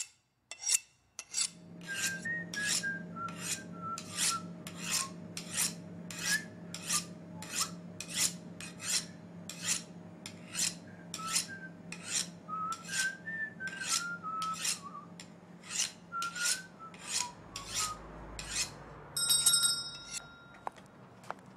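Regular rasping strokes, about three every two seconds, over a steady low hum, with a faint wavering tone weaving between the strokes. The strokes stop near the end, where a brief high ringing sounds.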